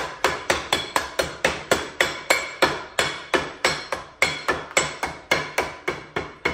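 A rapid, steady series of hammer blows with a metallic ring, about three to four a second and slowing a little towards the end, knocking the old wear ring out of a Sea-Doo 787 jet pump housing.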